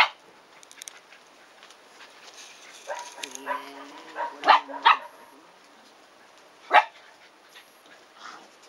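Shiba Inu puppies barking while they play-fight: one sharp bark at the start, a cluster of barks and yips about three to five seconds in, and one more sharp bark near seven seconds.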